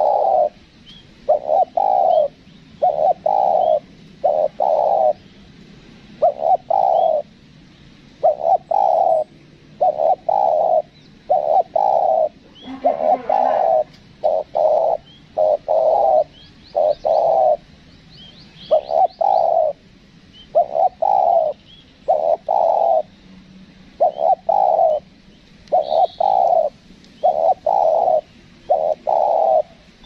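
Spotted dove cooing over and over in short phrases of two or three notes, with faint high chirps of small birds.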